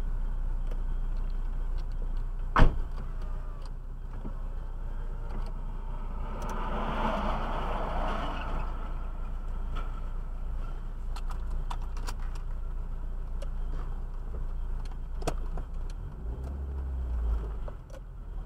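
Steady low rumble of a car in motion, with a sharp knock about two and a half seconds in and a swell of louder noise around the middle.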